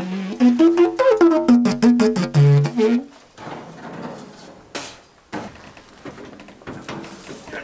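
A short melody of pitched notes, like a wind instrument, that stops about three seconds in. Scattered knocks and clatter follow.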